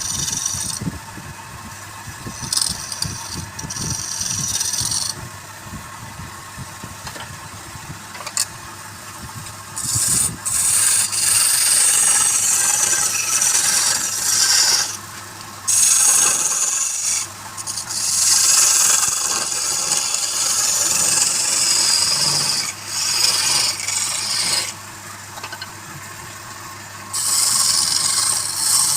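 Wood lathe running with a steady motor hum while a turning tool scrapes and cuts the spinning wood in repeated hissing bouts, with short pauses between them.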